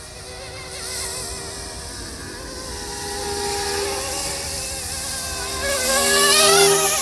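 Small electric RC helicopter (a YU XIANG F119S, MD500 scale) in flight: a thin, buzzing motor-and-rotor whine whose pitch wavers. It swings up and down and grows loudest about six seconds in as the helicopter manoeuvres.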